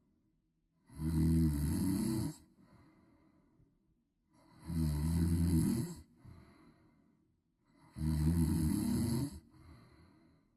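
Loud human snoring: three rasping snores about every three and a half seconds, each trailing off into a softer breath.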